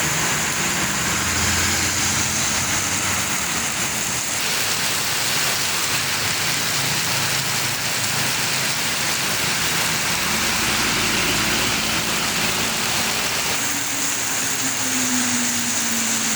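Road traffic, buses and other vehicles going by, with steady engine hum and tyre hiss. Near the end one engine's note falls gradually in pitch as it passes.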